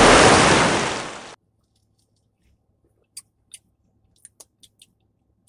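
A loud slurp through a drinking straw from a large fast-food cup, lasting about a second and a half and fading out, followed by a few faint clicks.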